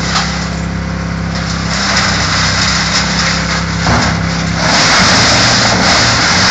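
Wood chipper running steadily, its engine humming under a loud, rough chipping noise with a few sharp cracks; it gets louder about five seconds in.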